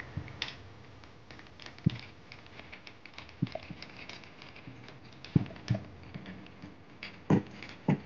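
Light, scattered clicks and taps of a screwdriver and wires being worked at the terminals of a three-gang wall switch as a bulb wire is screwed into a terminal. There are about half a dozen separate taps spread over the stretch.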